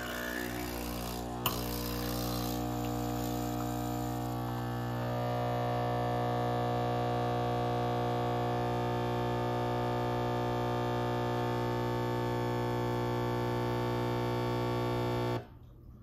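Nespresso Essenza Mini espresso machine's pump buzzing steadily as it brews an espresso shot, with a single click about a second and a half in. The buzz gets louder about five seconds in and cuts off suddenly near the end as the shot finishes.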